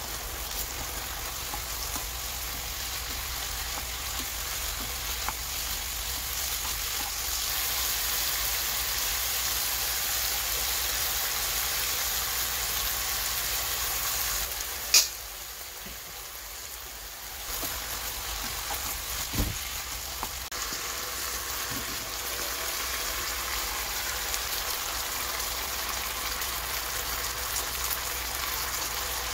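Pork pieces and green onions sizzling steadily as they stir-fry in a hot frying pan, stirred now and then with a spatula. A sharp click about halfway through is followed by a few seconds of quieter sizzling, and there is a soft knock a few seconds later.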